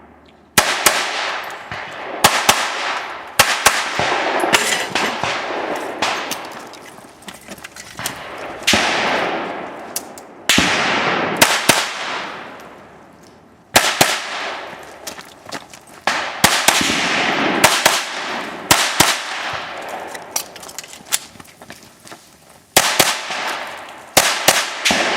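A .22 rimfire firearm fired shot after shot in quick runs, some two dozen shots with short pauses between runs, each crack followed by a long echoing tail and metallic ringing from steel targets being hit.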